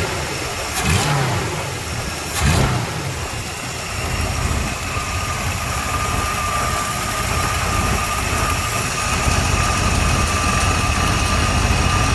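Car engine idling, blipped twice by a quick flick of the throttle early on, each rev rising and falling straight back. After a few seconds it settles and its idle speed creeps up as the distributor is advanced, with a thin steady whine joining in.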